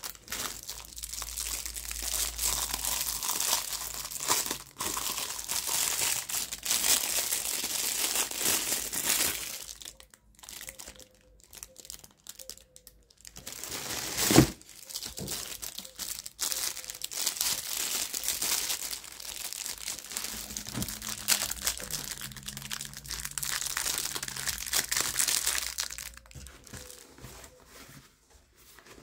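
Plastic packaging crinkling and rustling as items are handled in a cardboard box, in long stretches with short lulls. A single sharp knock about halfway through.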